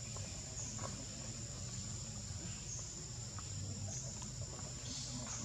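Insects trilling steadily at a high pitch over a low background rumble.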